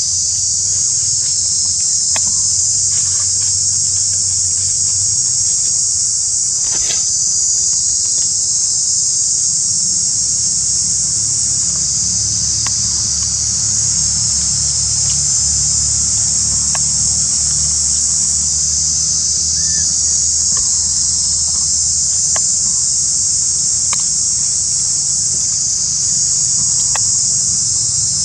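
A dense insect chorus shrilling steadily without a break, with a low steady hum underneath and a few faint ticks.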